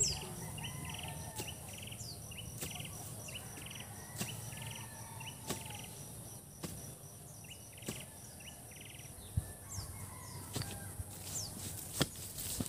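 Insects chirping in quick pulsed bursts repeating a little faster than once a second, with birds and chickens calling now and then. A sharp knock comes about every second and a half.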